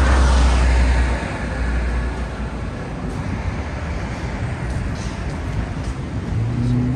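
City street traffic. A vehicle passes close with a deep rumble and hiss that fades about a second in, leaving a steady wash of traffic noise. Near the end a low, steady engine hum sets in.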